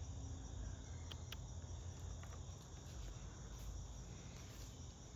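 Insects chirring steadily in the background, with a few faint clicks a little over a second in and again around two seconds in.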